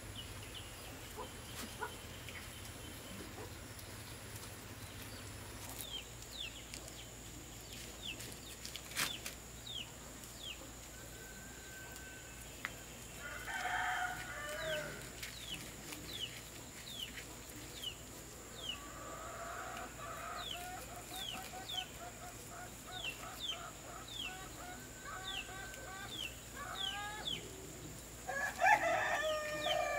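Chickens: a rooster crows, loudest near the end, among bouts of clucking, over a steady run of short, high, falling chirps.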